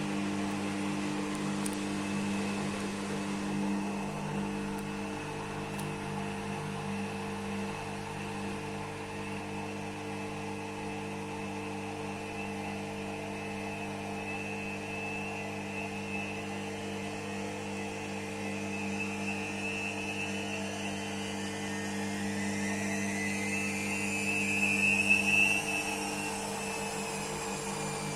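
IFB front-loading washing machine's drum motor during an intermediate spin: a steady hum, then a whine that climbs in pitch through the second half as the drum speeds up, is loudest a few seconds before the end and then starts to fall away.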